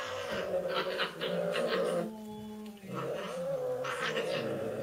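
Cats growling and yowling in a low, wavering drawn-out wail while sparring with paw swipes, with a steadier held note about two seconds in.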